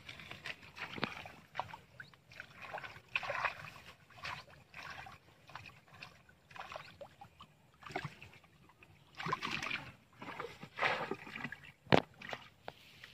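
Splashing and sloshing in the shallow, muddy water of a drained rice-field canal, in irregular bursts, as fish are caught by hand. A single sharp knock sounds near the end.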